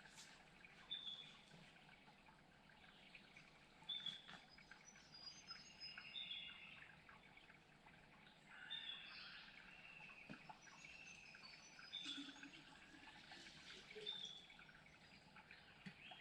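Faint birdsong: short high chirps and whistled notes repeating every second or so, several birds calling over each other.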